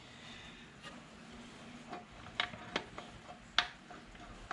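A few light clicks and taps, about five spread over the few seconds, as a hand works among parts inside a 727 Torqueflite automatic transmission case being taken apart.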